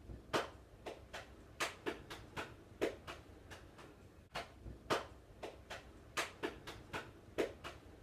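A run of sharp, irregular light taps and clicks, two to three a second, with a short lull a little before halfway.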